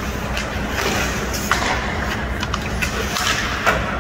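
Ice hockey rink during play: skate blades scraping the ice with a steady hiss, broken by a few sharp clacks of sticks and puck, about one and a half and three and a half seconds in.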